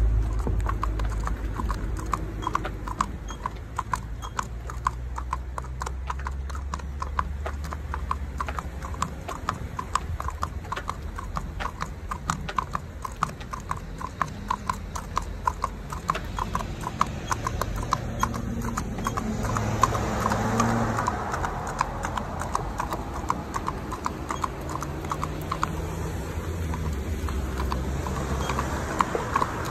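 A horse's hooves clip-clopping on a paved road at a walk, in a steady, even rhythm of about four hoofbeats a second.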